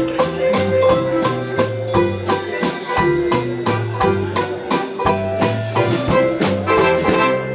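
Live dance band playing an instrumental passage: a bass line stepping from note to note under held chords, with a steady drum beat of about three strokes a second. The music stops shortly before the end.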